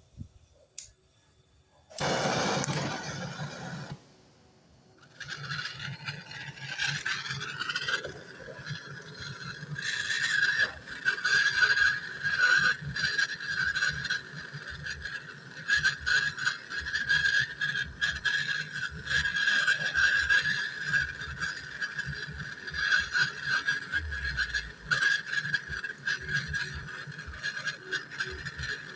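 Brazing torch flame: a burst of hiss about two seconds in, then from about five seconds a steady hissing tone with constant crackling as copper refrigeration tubes are brazed onto the compressor.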